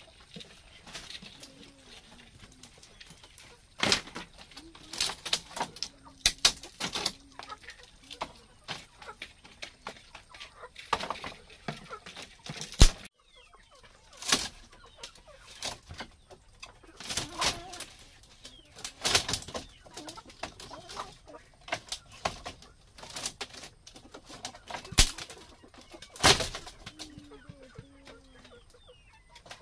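Chickens clucking, with a dozen or so irregular sharp knocks or chops spaced a second or more apart, the knocks being the loudest sounds.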